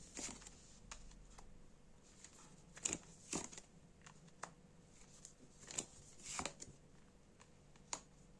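Tarot cards being drawn and laid out: scattered soft card flicks and taps, a second or so apart, with quiet room tone between.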